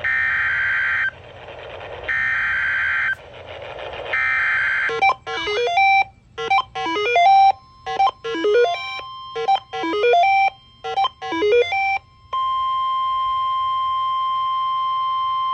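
Emergency Alert System weather-radio alert tones signalling a severe thunderstorm warning. Three short bursts of warbling SAME data tones about two seconds apart, then a run of quick electronic beeping notes, then the long steady warning alarm tone starting about three quarters of the way in.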